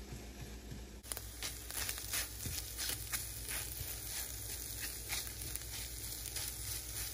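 Sausage and eggs frying in a pan, sizzling with scattered irregular pops and crackles that start about a second in.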